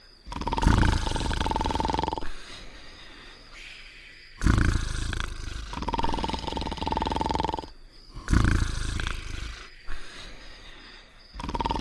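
Cartoon snoring: a loud, rattling snore with a held whistle-like tone in it, repeating about every four seconds, with quieter breathing sounds between. Three full snores, and a fourth begins near the end.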